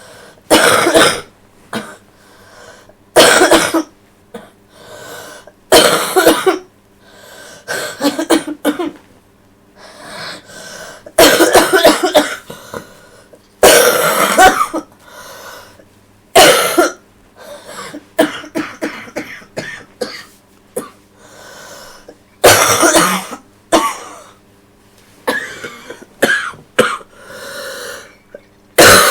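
A sick girl coughing hard and wet, in about ten sudden bouts a few seconds apart, some a single cough and some a run of several.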